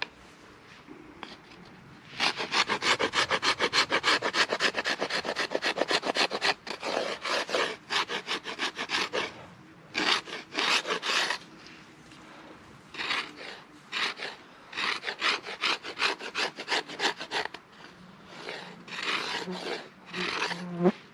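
A hand tool working wood with rapid back-and-forth rasping strokes, about five or six a second, in several bursts with short pauses between.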